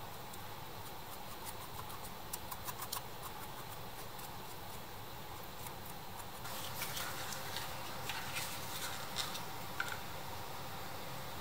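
A small paintbrush dabbing and scraping against a moulded plastic part, faint scattered ticks. After about six and a half seconds, light clicks and knocks of toy tractor parts being handled.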